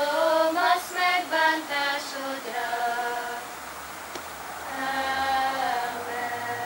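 A small group of young girls singing a slow tune unaccompanied, with long held notes, easing off briefly about halfway before another held phrase.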